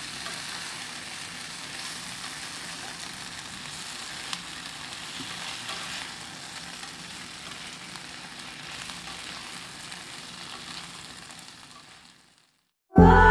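Sliced eggplant and string beans sizzling as they are sautéed in oil in a nonstick pan and turned with a spatula, with a steady hiss and a few light clicks. The sizzle fades out near the end, and loud music cuts in at the very end.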